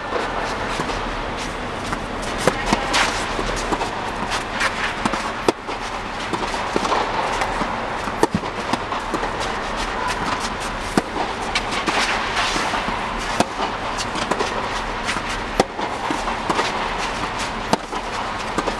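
Tennis rackets striking balls in a rally, with the balls bouncing on the court: sharp pops about every second or so, echoing in a tennis dome over a steady rushing background.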